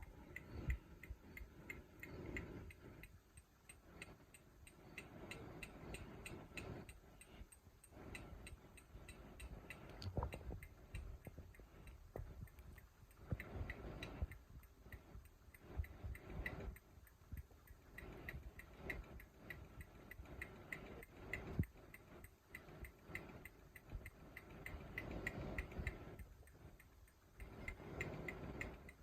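Hampton Bay Huntington II ceiling fan running on high speed, with a rapid, even ticking that keeps time with the spinning blades over a low rumble of moving air.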